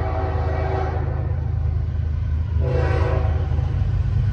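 Air horn of an approaching Norfolk Southern diesel locomotive sounding two blasts, the first trailing off about a second in and the second starting a little past halfway and cutting off near the end, over a steady low rumble.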